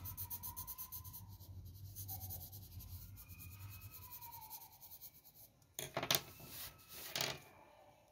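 Graphite pencil shading on paper in rapid, even back-and-forth strokes, followed about six and seven seconds in by two louder rubs of fingertips across the paper, smudging the shading.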